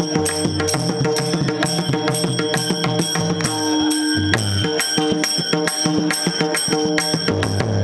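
Lively dance music with drums and other percussion keeping a quick, steady beat over held tones and a stepping bass line.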